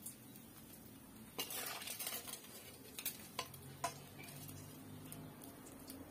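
Metal spoon scraping and clinking against an aluminium wok and plate as fried food is served out: a handful of faint, scattered knocks and clinks.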